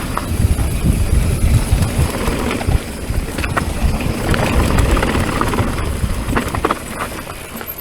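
Mountain bike riding down a rough trail: wind rumbling on the camera mic, with the bike clattering and knocking over the terrain in many short clicks. It eases off near the end.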